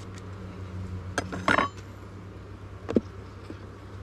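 Wooden beehive frame knocking and clacking against the hive box and neighbouring frames as it is worked free and lifted: a sharp click about a second in, a louder clatter around a second and a half, and another knock near three seconds, over a steady low hum.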